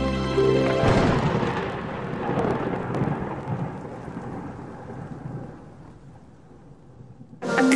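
Logo-reveal sound effect: a held musical chord gives way, about a second in, to a burst of crackling noise that slowly dies away. New music starts abruptly near the end.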